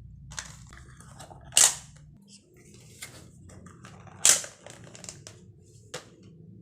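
Scattered sharp knocks and clicks of things being handled, with two louder ones about one and a half seconds and four seconds in, over a low steady hum.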